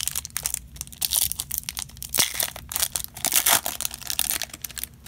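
A Bowman baseball card pack's wrapper being torn open and crumpled by hand: a dense, irregular run of crackly rustling, easing briefly near the end.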